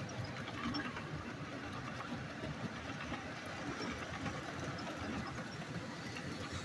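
Model freight train rolling past: the steady rolling noise of its cars' wheels on the track, with many small clicks.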